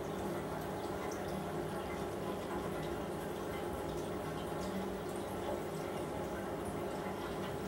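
Reef aquarium water circulating, a steady trickle with faint drips, over a steady low hum.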